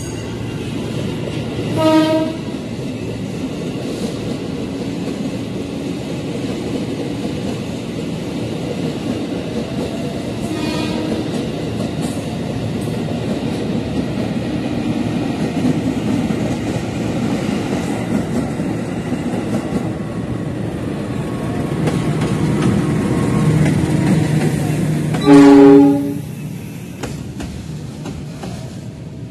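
Indonesian KAI diesel locomotive hauling a container freight train, approaching and passing close by: a steady rumble of engine and wheels on the rails that grows louder as it nears. Train horn blasts sound briefly about 2 seconds in and faintly around 11 seconds, then loudest for under a second about 25 seconds in.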